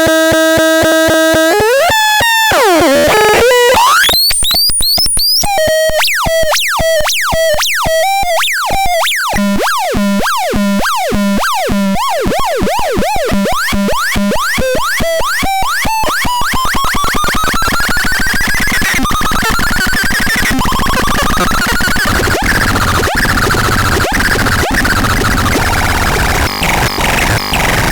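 Electronic synthesizer sounds: a held buzzy tone gives way after about two seconds to fast, repeated swooping pitch glides over a pulsing low note. From about the middle these thicken into a dense, noisy wash of sound.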